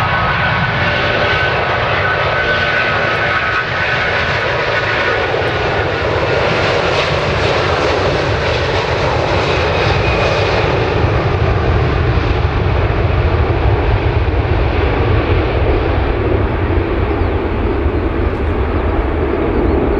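Airbus A330 twin jet engines at takeoff power through the takeoff roll and lift-off: a continuous roar with a high whine over it for the first few seconds, growing a little louder in the second half.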